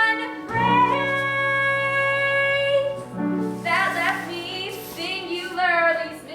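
Show-tune accompaniment between sung lines: the band holds chords over a low bass note that enters about half a second in, then a wavering melody line slides up and down through the middle of the passage.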